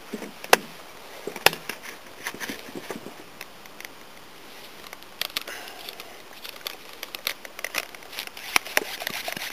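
Green plastic garden pressure sprayer being handled, giving irregular plastic clicks and knocks that come thicker in the second half.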